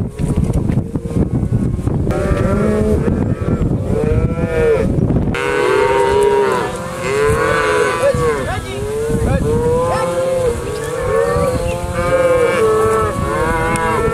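A herd of Black Angus cattle mooing, many calls overlapping continuously. A low rumbling noise underlies the first five seconds and cuts off suddenly.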